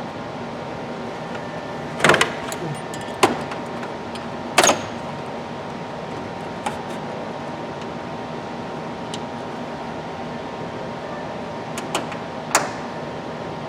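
Several short knocks and clicks of parts and tools being handled while a panel is screwed down, over a steady background hum. The loudest knocks come about two, three and four and a half seconds in, with two smaller ones near the end.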